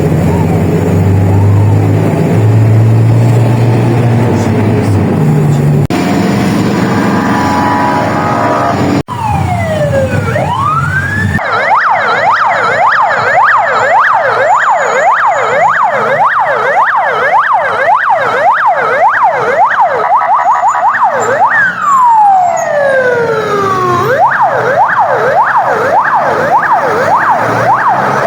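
Ambulance electronic siren: low droning tones for the first few seconds, then a slow wail gliding down and up, switching to a fast yelp of about three sweeps a second, a slow wail falling, and back to the fast yelp.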